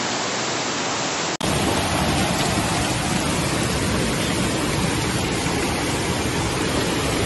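Steady rushing noise of muddy floodwater surging down a street. About a second and a half in it cuts out for an instant and comes back fuller and deeper.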